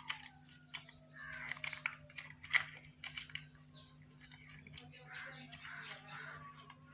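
Light plastic clicks, taps and scraping as the white plastic housing of a small rechargeable LED torch is handled and its parts are pressed back together.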